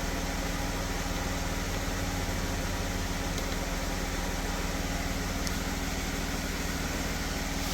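12 V portable air compressor running steadily, its motor and piston giving an even, fast-pulsing hum while it inflates a tire.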